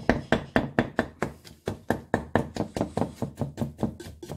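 Wooden spoon beating peanut-butter cookie mixture in a mixing bowl: a fast, even run of knocks against the bowl, about six a second, that stops just before the end.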